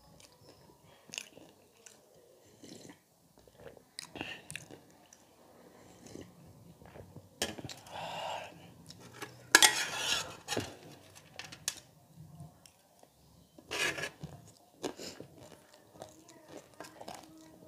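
Close-miked chewing and crunching of crisp pani puri and chatpate, with a few louder crunching bursts around the middle and near the end. Light clinks of a metal spoon against dishes are scattered through it.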